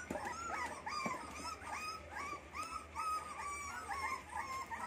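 Rottweiler puppies whimpering, a steady run of short, high whines at about three a second.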